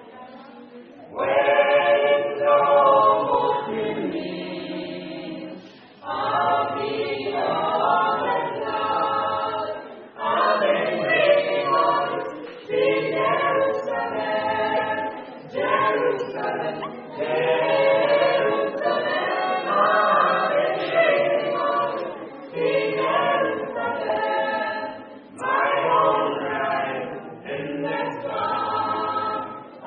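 Gospel vocal quartet singing a cappella in harmony, in short phrases with brief breaks between them; the singing comes in about a second in.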